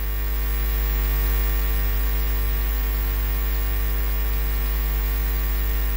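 Steady electrical mains hum: a low buzz with many evenly spaced overtones that swells slightly over the first second and begins to fade near the end.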